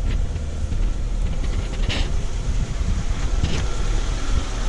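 Daewoo Sens engine idling with a steady low rumble, running with an active camshaft position sensor fault (P0341). A couple of faint clicks sound about two and three and a half seconds in.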